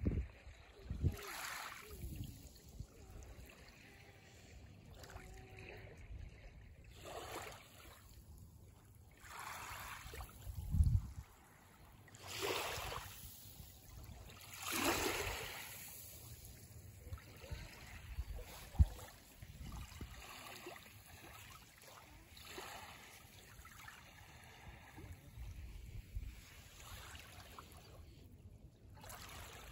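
Small waves lapping on a sandy, pebbly shore, each one a soft wash that swells and fades every few seconds. There is a low thump about eleven seconds in and a single sharp click a little before twenty seconds.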